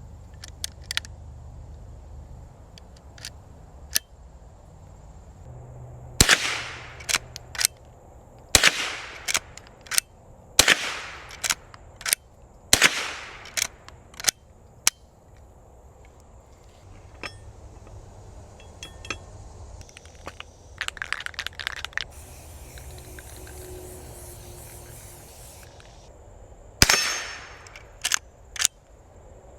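Henry Golden Boy .22 lever-action rifle firing: four shots about two seconds apart, then one more after a long pause, each with a short echoing tail. Lighter metallic clicks come between shots as the lever action is cycled.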